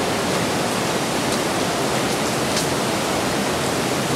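Steady rushing of the Kurdzhips mountain river running through the gorge, an even unbroken wash of water noise.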